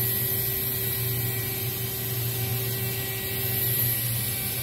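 OKK HM6300S horizontal machining center running: a steady mechanical hum with a constant high hiss. A mid-pitched steady tone in the hum stops about four seconds in.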